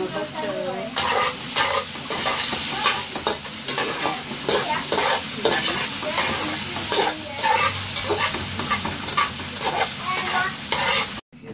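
A spatula stirring and scraping chopped sweet peppers and tomato as they fry in a large aluminium pot. A steady sizzle runs under repeated scrapes against the metal, about two or three a second. The sound cuts off suddenly near the end.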